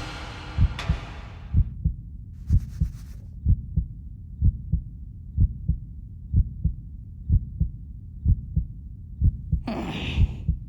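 Heartbeat sound effect: low double thumps, lub-dub, about once a second. A short, louder noisy sound cuts in near the end.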